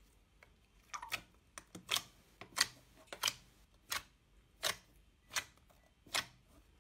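Fingertip poking into a sheet of clear slime, each poke popping trapped air with a sharp click. The clicks start about a second in and come about three every two seconds.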